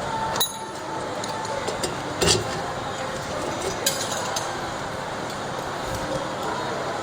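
Light clinks and knocks from hardware being handled, with three sharper ones about half a second, two seconds and four seconds in, over a steady background hiss.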